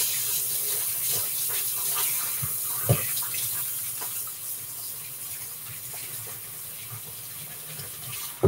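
Kitchen sink tap running as hands are washed under it, with a few small knocks at the sink; the water stops abruptly near the end after a sharp knock.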